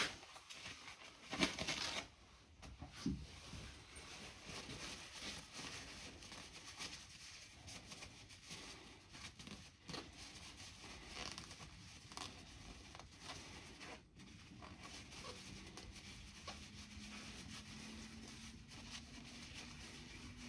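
Paper towel rustling and crinkling as it is rubbed over an air-rifle piston to clean it, with louder paper handling in the first two seconds and a knock about three seconds in.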